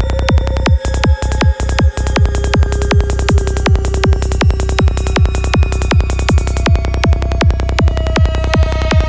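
Dark psytrance at 160 BPM: a kick drum on every beat, under three a second, over a steady rolling bassline. The beat stutters with short dropouts about a second in. A high hissing hi-hat pattern runs until about two thirds of the way through.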